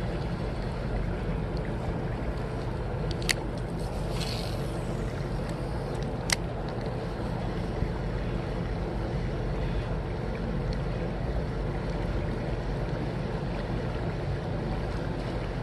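Steady wind buffeting the microphone, a low rumbling hiss, with two sharp clicks, a little over three seconds in and again about three seconds later.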